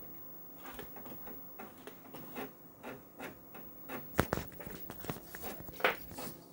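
Faint, irregular clicking and ticking of the Amiga's drive mechanism and mouse as a Workbench drawer opens and its icons load, with a sharper click about four seconds in and another near the end.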